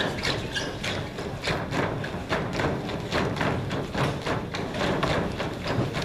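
Many dancers' trainer-clad feet landing on a stage floor in unison, making a steady rhythm of thuds at about three a second.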